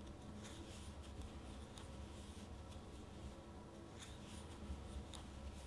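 Faint rustling and soft scratching of an 8 mm crochet hook pulling loops through thick yarn, with a few light ticks scattered through.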